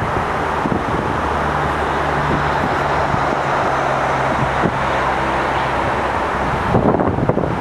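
Freight train rolling away along the track: a steady rushing noise of steel wheels on rails with a low hum underneath. Near the end the rolling noise drops and wind buffets the microphone.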